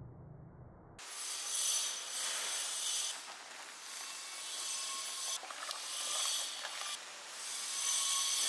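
A low hum that cuts off about a second in, followed by a rough rubbing, rasping hiss that swells and fades in strokes every second or two.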